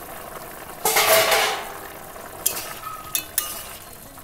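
Metal cookware noise at a kadai of simmering pumpkin and potatoes: a loud scraping rush about a second in, then three sharp metal clinks.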